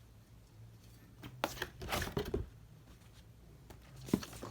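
Packaging and box contents being handled: scattered light rustles and clicks about a second and a half in, and a sharper knock near the end.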